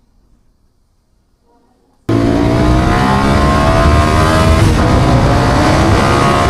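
Near silence for about two seconds, then a Kawasaki ZX-6R's inline-four engine cuts in abruptly, running hard with its pitch rising steadily as it accelerates.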